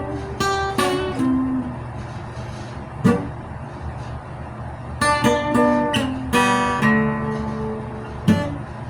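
Acoustic guitar being picked and strummed, single notes and chords ringing out, with a busier strummed run about five seconds in. A sharp knock sounds about three seconds in and again near the end, over a steady low rumble.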